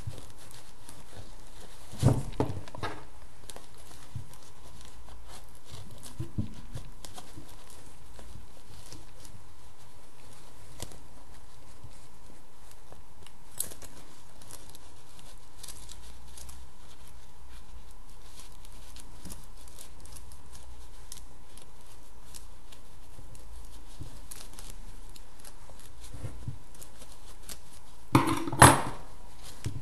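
Soft rustling and scraping of felt handled and poked with the points of a pair of scissors to push out the tip of a sewn felt pouch, over a steady background hiss with a faint steady tone. A knock about two seconds in and two louder knocks near the end as the scissors are handled.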